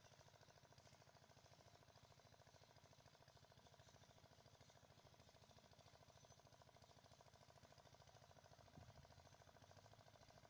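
Near silence with a faint, steady, rapidly pulsing mechanical hum, and one soft bump about nine seconds in.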